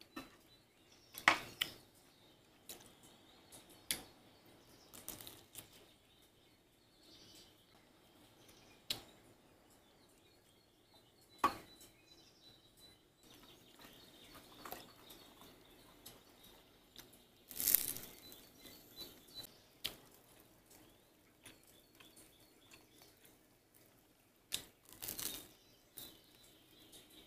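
Scattered light clicks, taps and short rustles of eating at a table: wooden skewers and small metal cups being handled on a wooden serving board, at irregular intervals. A faint steady high tone lies underneath.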